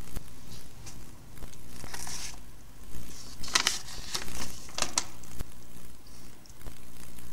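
A sheet of paper rustling and crinkling as it is handled and unfolded, with a cluster of sharp crackles between about three and a half and five seconds in, over a low steady hum.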